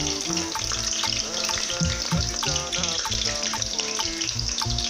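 Sliced onions sizzling as they fry in hot palm oil, with a steady hiss throughout. Background music with a steady beat plays under it.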